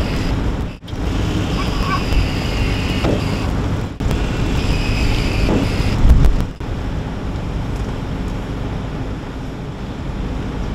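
Steady machinery rumble with wind noise on the microphone, overlaid by a high whine. The sound breaks off abruptly about a second in and again at four seconds. After about six and a half seconds the whine is gone and only the rumble and wind noise remain.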